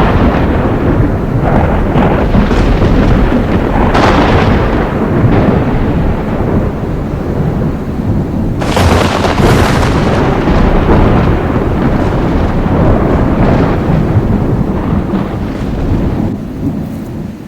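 Thunderstorm: heavy rain and a continuous low rumble of thunder, with sharp thunder cracks about four seconds in and again near the middle, the storm fading near the end.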